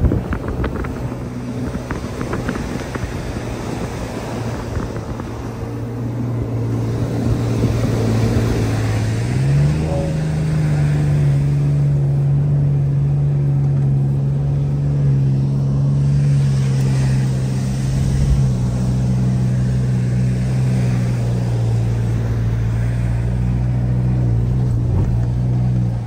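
Ford Ranger Raptor's 3.0-litre twin-turbo V6 petrol engine pulling steadily while driving on sand. About ten seconds in its note rises in pitch and grows louder, then holds at the higher revs.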